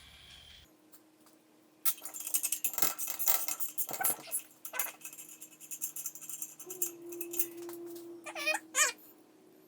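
Metal parts and hand tools clattering and jangling while a dirt-bike rear wheel is taken apart, a dense run of sharp clinks about two seconds in, then sparser knocks. A faint steady hum runs underneath, and a short wavering high squeal comes near the end.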